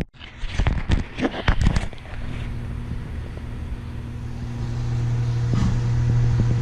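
A few sharp clicks and knocks of hand work, then a motor vehicle's engine hum, steady and low, that sets in about two seconds in and grows slowly louder.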